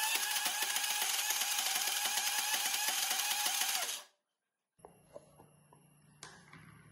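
Electric mixer grinder with a steel jar running at full speed, grinding soaked rice, grated coconut, black pepper and cumin into a coarse batter; the motor cuts off about four seconds in. A few faint clicks follow as the jar's lid is handled.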